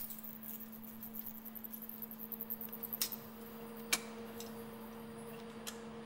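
A steady low hum from lab equipment, with a fainter hum above it. Over it come scattered small clicks and rustles from a wire-mesh cage being handled, the sharpest two about three and four seconds in.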